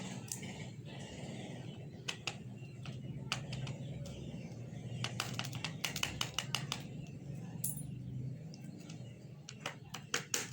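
Quick sharp clicks and taps from handling and opening a small aluminium medicine packet: a few scattered ones, a fast run of about eight in the middle and more near the end, over a steady low hum.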